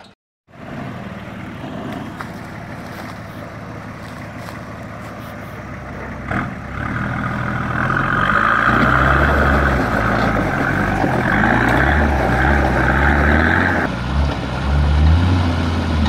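Nissan Patrol GU 4x4's engine working under load as it crawls up a steep rock step, the revs stepping up and down. It grows louder from about seven seconds in and eases near the end.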